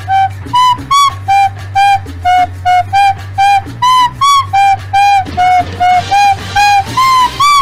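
Music: a melody of short, evenly spaced high notes, about three a second, over a steady low hum.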